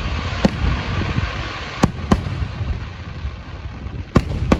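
Fireworks bursting: five sharp bangs, one about half a second in, then two close pairs near two seconds and near the end, over a steady rumble and hiss.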